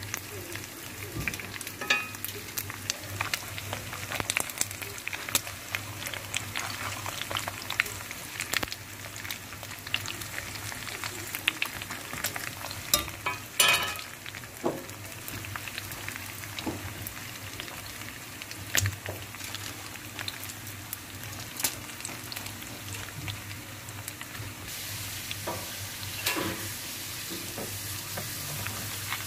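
Marinated steaks frying in oil in a pan, sizzling steadily with frequent sharp pops and crackles of spitting oil, and a louder burst of crackling a little before halfway.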